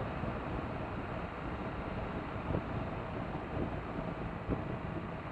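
2017 BMW R1200RT motorcycle riding at steady road speed: an even rush of wind and road noise mixed with the running engine.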